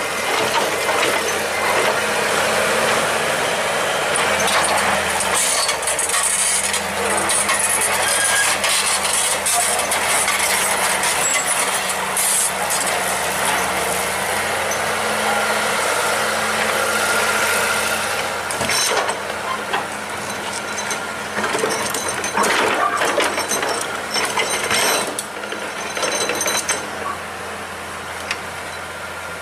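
Excavator working: its diesel engine runs steadily under load beneath dense mechanical noise, with sharp metallic clanks and rattles about two-thirds of the way through.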